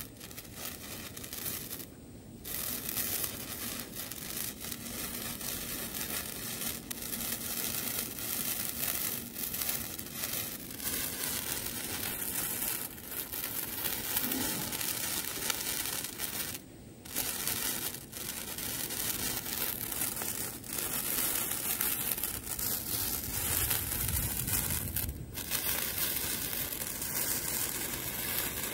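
Durga's Red 15 cm colour sparkler burning with a steady crackling fizz, broken by three very short dips.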